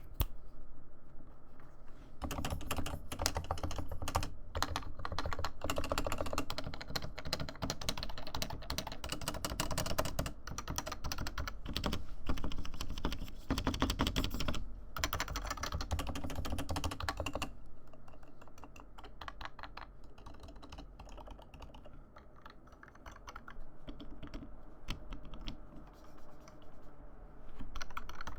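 Fast, continuous typing on a stock Topre RealForce R2 keyboard with 55 g electro-capacitive switches, keys pressed in a rapid muted patter. The typing eases and turns softer after about seventeen seconds, then picks up again near the end.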